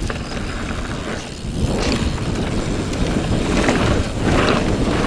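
29-inch mountain bike rolling fast downhill, its tyres rumbling over gravel and grass, with wind buffeting the camera microphone. It gets louder about a second and a half in as the bike picks up speed over rougher ground.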